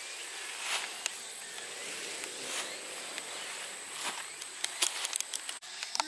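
Outdoor ambience of steady, high-pitched insect chirring, likely crickets, with soft rustles of grass and a quick cluster of clicks near the end.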